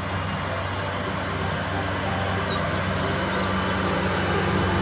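Tractor engine running steadily: a low, even engine drone that grows slightly louder.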